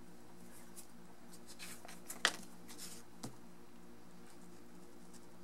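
Faint scratching and clicks of a single-edge razor blade scoring transfer tape along the edge of a cardboard subroof, with one sharper click a little over two seconds in and another about a second later, over a steady low hum.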